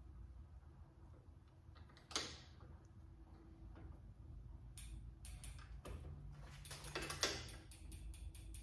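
Pedal being threaded onto a bicycle crank arm and tightened with a pedal spanner: a single click about two seconds in, then a run of light, irregular metallic ticks over the last few seconds.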